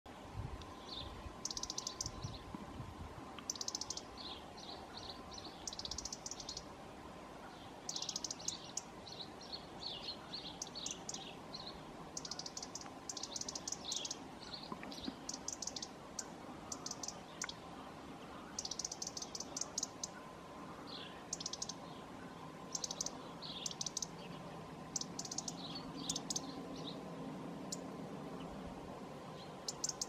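European serin twittering: short bouts of high-pitched, rapid jingling notes, repeating every second or two.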